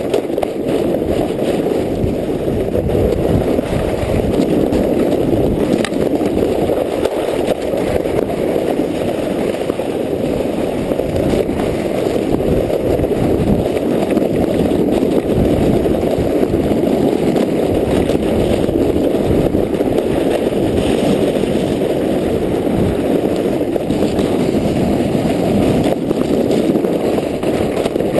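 Towed sled sliding and scraping over packed, icy snow at speed: a steady, loud scraping rumble.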